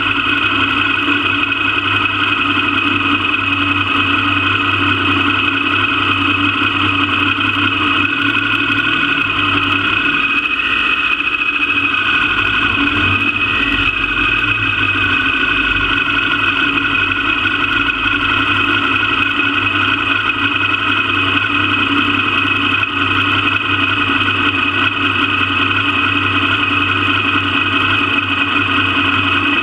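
Motorcycle engine running at a steady, unchanging pitch, picked up close by a camera mounted low on the bike.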